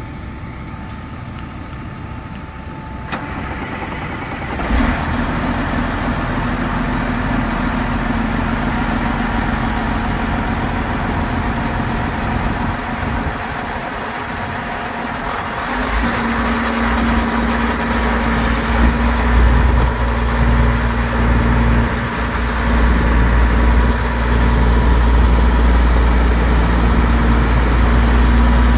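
A vehicle engine running steadily. It steps up suddenly about five seconds in and runs louder, with more low end, from about halfway through.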